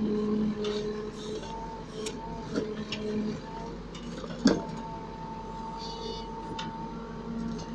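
Case 770 backhoe loader's diesel engine running with a steady hum while its bucket digs into earth and stones, giving scattered clinks and knocks of stone. One sharp knock about halfway through is the loudest sound.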